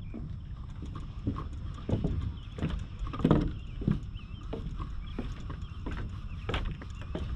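Footsteps on the weathered wooden planks of a pier, knocking at a steady walking pace of about three steps every two seconds.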